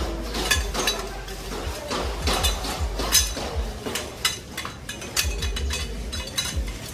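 Tent poles clinking and clacking against each other as they are handled and put into their fabric carry bag. The sound is a string of irregular light clinks with some low thumps.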